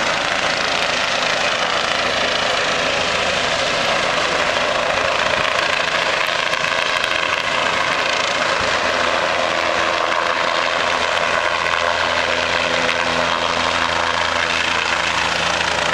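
Helicopter flying low overhead, its rotor and engine running steadily with no let-up.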